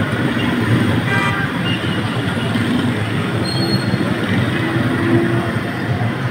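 Steady din of a jammed street's traffic, heard from above: the engines of many auto-rickshaws, motorbikes and cars idling and creeping along.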